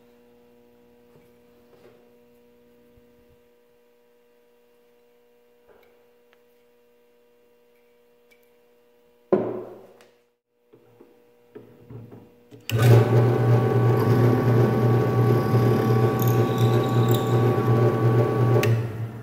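Benchtop drill press boring into a block: a loud steady motor hum with cutting noise for about six seconds in the second half, stopping abruptly just before the end. Before it, a faint hum and a single sharp knock near the middle.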